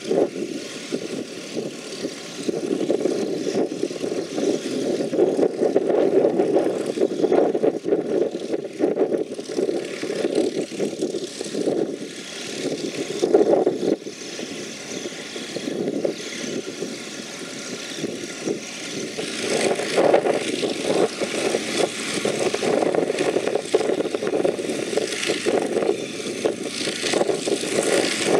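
Merlin V-12 engine of a North American TP-51C Mustang running at low power on the ground, its level swelling and easing every few seconds.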